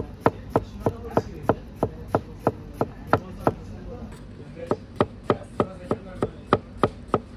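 Chef's knife slicing cucumbers on a plastic cutting board: the blade knocks against the board in a steady rhythm of about three cuts a second, with a short pause about halfway through.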